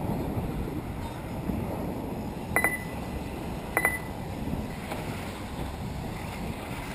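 Wind rumbling on the microphone over a race track, with two short, sharp high tones about a second apart a few seconds in.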